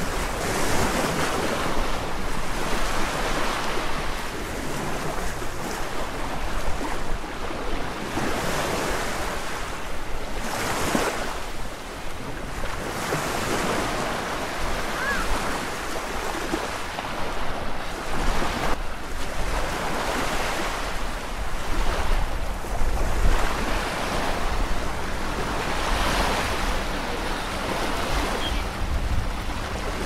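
Small waves breaking and washing up a sandy beach, swelling and fading every few seconds. A steady low rumble of wind buffets the microphone throughout.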